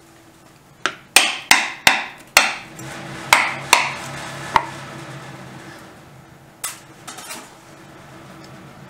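Metal roof rattling in the wind: a quick run of about eight sharp, ringing bangs, a few more near the end, over a low rumbling.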